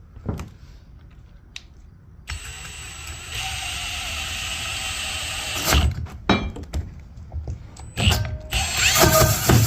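A power drill starts up about two seconds in and runs steadily as it bores into a wooden board to enlarge an existing hole. Knocks come as the bit bites, then it runs again louder near the end. A few sharp clicks before it starts.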